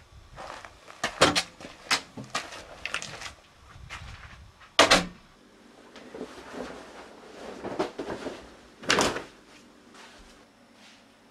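Household handling noises: a quick run of clicks and knocks, a loud thud about halfway, then clothes rustling as they are piled up, and another thud near the end.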